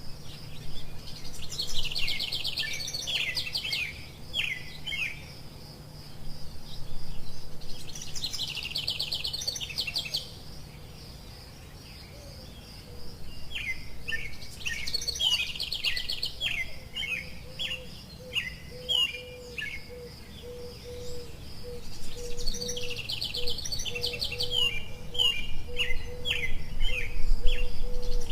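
A songbird singing the same phrase over and over, about every six or seven seconds: a fast high trill followed by a run of separate, lower notes. A steady, faint high-pitched tone and a low rumble run underneath.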